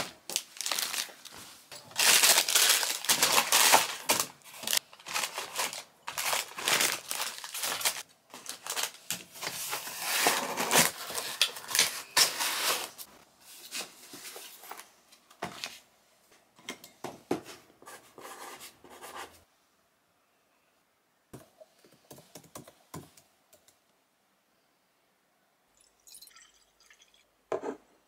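Crinkling and rustling of handled packaging, with dense crackles for about half the time, then thinning to scattered crackles and a few faint clicks.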